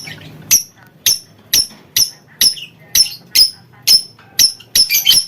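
Lovebird in its long 'ngekek' calling: a run of shrill, sharp chirps about two a second, each dropping quickly in pitch, coming faster and jumbled together near the end.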